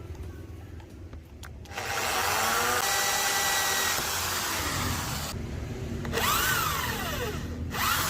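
Electric drill fitted with a homemade PVC chuck running in short bursts: it starts about two seconds in, stops briefly, then starts again, its whine falling as it slows, and starts once more near the end.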